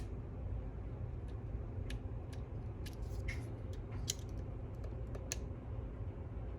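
A LockMaster Moki Edition Jackknife lock pick working the pins of a lock under tension. It makes small irregular metallic clicks and ticks, about a dozen, over a faint steady low hum.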